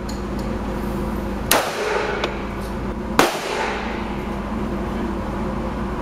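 Two shots from an HK USP .45 pistol in an indoor range, the first about a second and a half in and the second under two seconds later, each with a short echo off the range walls, over a steady low hum.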